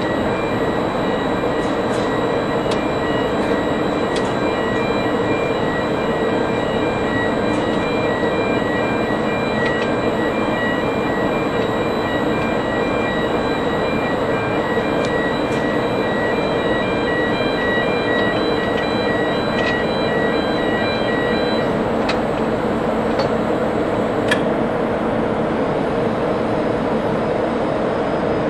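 Steady, loud drone of running machinery, with a high, rapidly pulsing beep over it that stops about three-quarters of the way through. A few faint clicks are heard while the shore-power cable plug is lowered on its chain into the receptacle.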